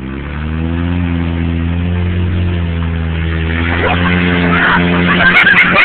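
Lawn mower engine running at a steady pitch, with a rattling, clattering noise building up over it from about three and a half seconds in.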